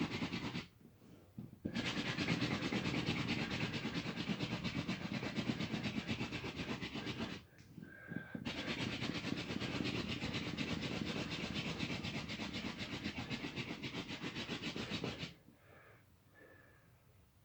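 Hand drill for fire by friction: a wooden spindle spun back and forth between the palms, grinding in the notch of a dead ivy hearth board with a dry, rhythmic rubbing. It breaks off twice briefly and stops about fifteen seconds in, leaving faint breathing.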